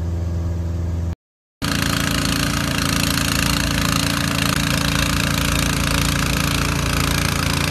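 A small propeller plane's engine drones steadily from the cockpit for about a second, then cuts off in a short gap of silence. After the gap a snowblower's engine runs steadily as it throws snow, under a continuous hiss of the snow stream.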